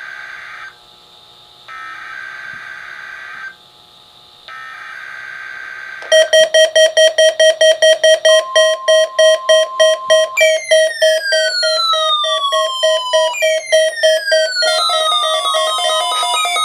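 Midland WR-300 weather radio receiving a NOAA Weather Radio required weekly test: three buzzing bursts of digital SAME header data, about a second apart. About six seconds in, the radio's own alert sounds, a fast run of loud beeps joined by repeated falling whistle-like tones.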